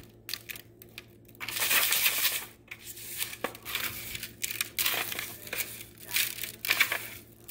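Dry panko breadcrumbs rustling and a disposable aluminium foil pie pan crinkling as a battered corn dog is rolled and pressed in the crumbs by hand, in irregular scrapes, loudest about a second and a half in.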